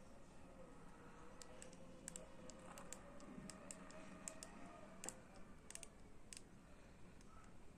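Faint, irregular small clicks and taps of fingers on a smartwatch's glass screen and side button, a quick string of them from about a second and a half in.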